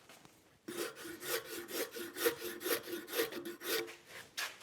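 A hand tool shaving a hickory hammer handle. It makes quick, repeated scraping strokes on the wood, about four a second, starting under a second in and stopping near the end. The strokes are squaring up the handle.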